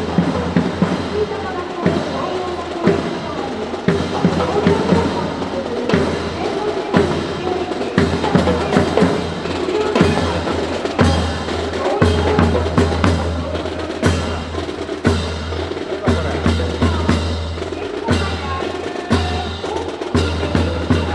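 Drum cadence with snare rolls and bass drum beats, full of sharp clacks and strikes in quick succession, echoing in a hall.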